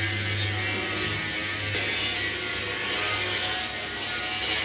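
Electric centrifugal blower running with a steady hum and a rush of air, forcing air into a rice-husk furnace as it burns.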